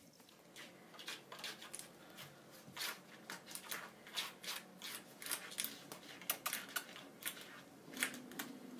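A cat's claws scratching and scuffing in quick, irregular strokes.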